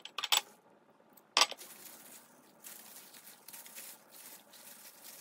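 A few short clinks of kitchenware, the loudest just after the start and about a second and a half in, then faint, intermittent wet squishing as a plastic-gloved hand massages raw pork chops in a soy sauce marinade in a bowl.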